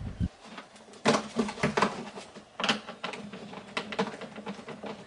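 Scattered, irregular clicks and knocks of plastic parts being handled and fitted on a plastic cooler box, with a low rumble cutting off just after the start.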